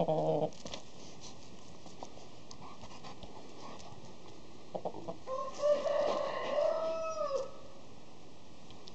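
Rooster crowing once, about five seconds in: a pitched call of some two seconds that rises and falls. A brief low call comes right at the start.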